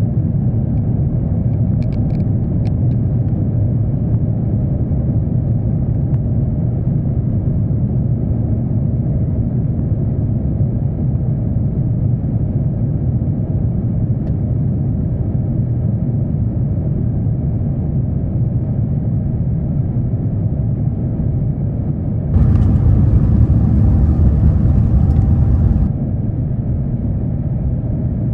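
Airbus A350-900 cabin during the takeoff roll, its Rolls-Royce Trent XWB engines at takeoff thrust: a loud, steady, deep rumble. A few light rattles come about two seconds in, and a louder, hissier stretch of a few seconds comes near the end.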